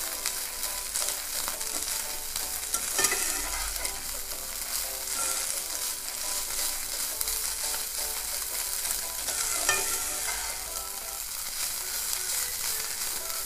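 Shredded chicken and onions sizzling in oil in a non-stick pan while a slotted spatula stirs and scrapes them, with a couple of sharper scrapes of the spatula on the pan.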